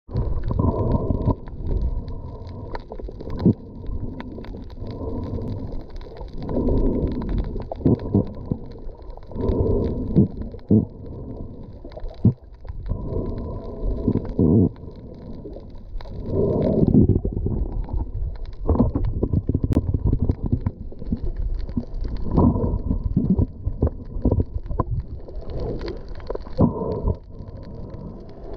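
Muffled underwater sound picked up by a GoPro in its waterproof housing: water gurgling and swishing around the camera, swelling and fading every few seconds, with scattered small clicks and knocks.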